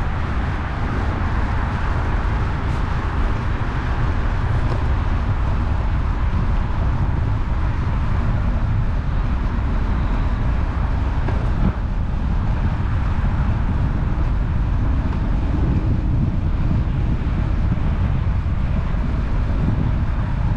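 Steady wind noise buffeting the microphone while moving along: a continuous low rumbling rush with no distinct events.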